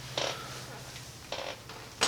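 Faint rustling and a click from hands handling wiring and a crimped terminal, twice briefly, over a steady low hum.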